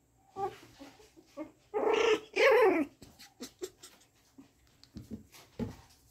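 Shih Tzu puppies barking: two loud yappy barks in quick succession about two seconds in, the second falling in pitch, with a few smaller, quieter puppy sounds just before. Later, light clicks and two soft knocks, as of the puppies moving about the pen.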